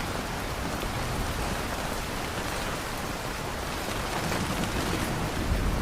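Steady rain falling, an even hiss of drops on a surface, with a low rumble swelling slightly in the last couple of seconds.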